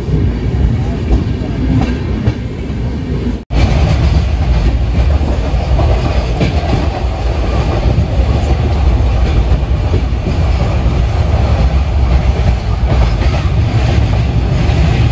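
Express passenger train running at speed, heard from inside the coach by an open window: a steady, loud rumble of wheels on the rails. About three and a half seconds in the sound cuts out for an instant and comes back louder.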